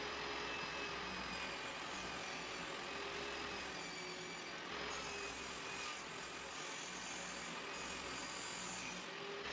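Table saw running and cutting a pine board as it is fed through the blade, a steady saw noise with a faint wavering whine.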